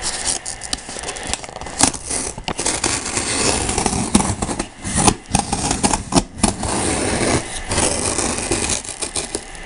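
Pen-style craft knife slitting the packing tape along a cardboard box seam: a steady scraping and crackle of blade on tape and cardboard, broken by several sharp knocks as the box is handled.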